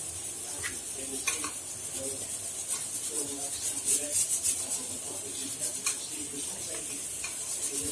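Boiled mashed potatoes being mixed with spice powders in a bowl: a soft stirring, squishing sound with a few light clicks against the bowl.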